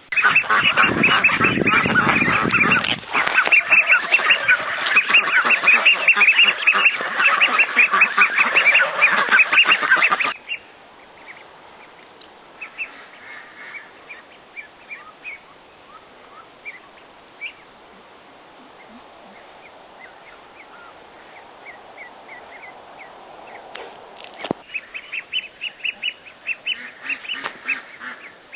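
A flock of farm poultry calling noisily all at once, a dense mass of rapid honks and peeps. It stops abruptly about ten seconds in, leaving scattered faint calls, and a second noisy burst of calls comes near the end.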